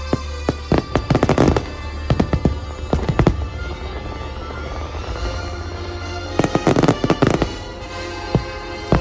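Aerial fireworks bursting over a musical soundtrack: scattered sharp bangs, with rapid volleys about a second in and again about two-thirds of the way through.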